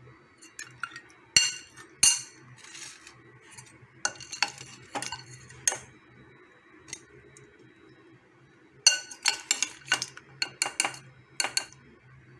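Metal spoon clinking and scraping against the rims of dishes while mutton is served out of a bowl onto a plate of rice, in three bunches of sharp clinks: near the start, around the middle and near the end.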